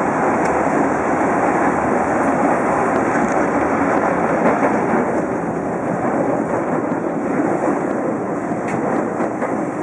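Osaka Metro 22 series subway train running at speed, heard from inside the front car: a steady rumble of wheels on rail with tunnel noise and no horn.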